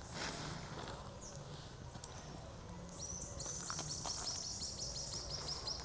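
A bird calling outdoors: from about three seconds in, a quick run of high, evenly repeated chirps, about five a second, over a low steady background of outdoor noise.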